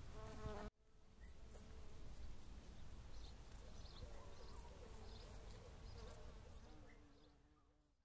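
Insects chirping in the grass, short high-pitched pulses repeating a few times a second over a low outdoor rumble. The sound cuts out briefly near the start, then fades away near the end.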